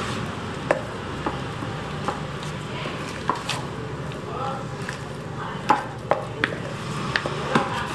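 Plastic spatula stirring and folding thick nastar cookie dough in a plastic mixing bowl: soft scraping with irregular sharp clicks as the spatula knocks against the bowl, over a steady low hum.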